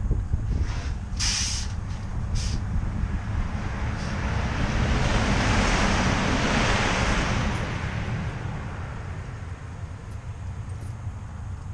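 A vehicle passing on the highway, its road noise swelling to a peak about six seconds in and fading away, over a steady low rumble. Two short hisses come in the first few seconds.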